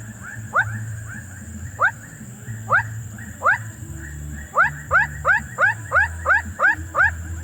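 An animal's short calls, each rising quickly in pitch. They come about one a second at first, then quicken to about three a second in a fast run near the end. A low rumble and a steady high hiss run underneath.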